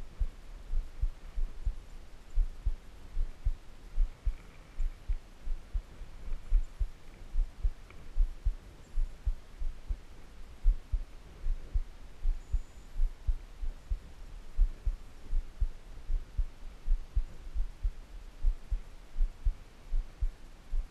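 Fish being scaled with a hand scaler on a plastic cutting board: repeated dull, deep thuds, about two to three a second, as the scaler strokes knock against the fish and board.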